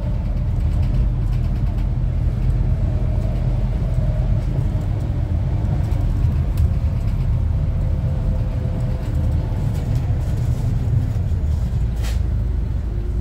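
Steady low rumble of a moving road vehicle, heard from inside its cabin, with faint wavering engine tones over it. There is a brief click near the end.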